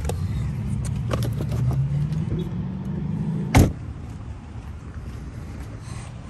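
A Chrysler minivan's driver's door is slammed shut, one loud bang about three and a half seconds in. A low hum runs under the first part and stops when the door closes.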